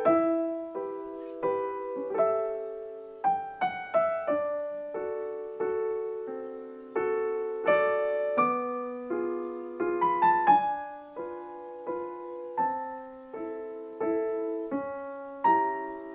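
Background music of a slow, gentle piano piece: single notes and chords struck one after another, each ringing and fading before the next.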